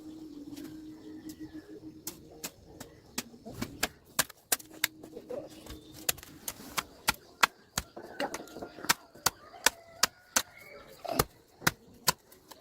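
A run of sharp, irregular knocks or chops, roughly two a second, starting about two seconds in and becoming louder and more frequent toward the end.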